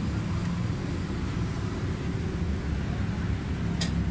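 Suzuki Cultus EFI's four-cylinder engine idling steadily after a tappet and idle adjustment, with a brief click near the end.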